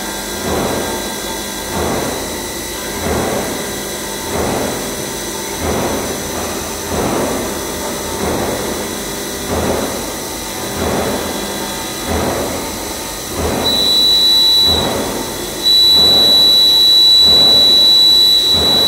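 CNC vertical machining center finishing a steel dome with an end mill: a steady spindle whine with the cutting noise swelling and fading about every 1.3 seconds as the tool sweeps each pass around the dome. A loud high steady whine comes in briefly near the end, then again and holds.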